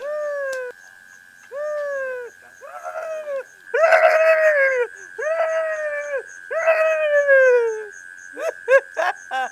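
A man's voice giving a string of howl-like wails, about six long calls each sliding down in pitch, the loudest about four seconds in, then a few short yelps near the end.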